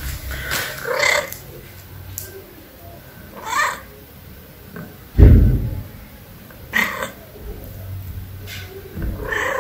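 Domestic cat meowing four times, a few seconds apart, while looking up at a person and begging for food. A loud, low thump comes about halfway through.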